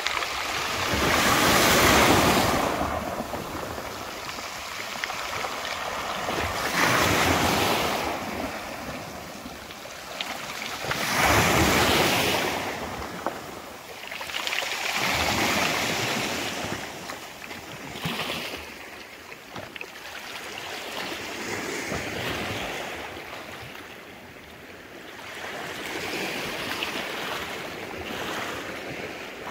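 Small sea waves washing onto a pebble beach, each wave swelling and falling back every four to five seconds.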